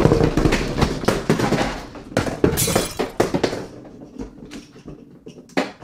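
Plastic Mini Brands capsule balls being tipped out and clattering against each other and the table: a dense rattle of knocks that thins into scattered taps as they roll to a stop, with one sharper knock near the end.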